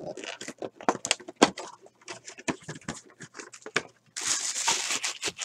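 Crinkling cellophane wrapping and cardboard trading-card packs clicking and rustling as a box of 2013 Panini Select baseball cards is unpacked by hand. About four seconds in there is a longer, denser stretch of crinkling, like wrap being torn.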